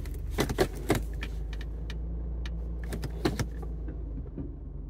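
Mercedes convertible's supercharged engine running with a steady low hum, heard from inside the cabin, while the car creeps along. Sharp clicks and clinks like jangling keys come about half a second in and again around three seconds in.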